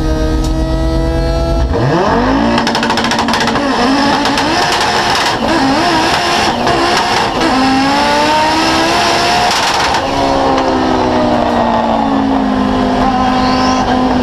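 Turbocharged Audi five-cylinder race engine of a 1300 hp drag car, held at a steady pitch, then launching about two seconds in with a sharp rise in revs. It climbs repeatedly through the gears with sharp crackles, then comes off the throttle at about ten seconds as the revs fall away.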